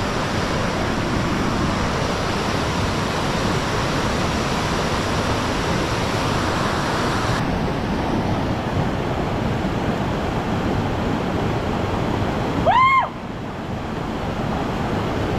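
Steady rushing of a waterfall and its fast-flowing water. About halfway through the rush suddenly turns duller, and near the end a brief whistle rises and falls, the loudest sound here.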